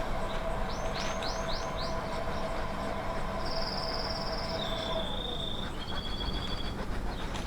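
Small birds singing: four quick downward-swept chirps, then several high trills. Under them is a steady rumbling noise, and a faint steady tone that stops about five seconds in.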